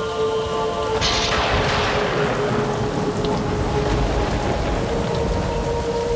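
Steady rain falling, with a thunderclap about a second in that rumbles away over the next few seconds, under a sustained musical drone.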